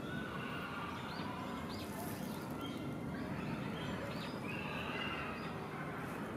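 Birds chirping outdoors: short arched calls repeated every second or so, with a longer call about five seconds in, over a steady low rumble of background noise.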